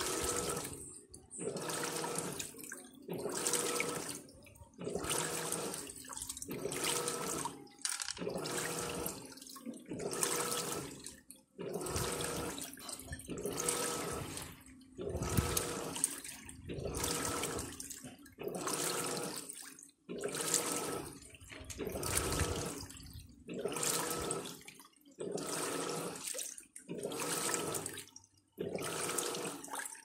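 Electrolux 15 kg top-loading washing machine agitating, in a steady rhythm of back-and-forth strokes, each a burst of motor hum and sloshing water. The basket is held locked, which agitates much better; left alone the basket spins loose during the wash, a fault that a new actuator did not cure.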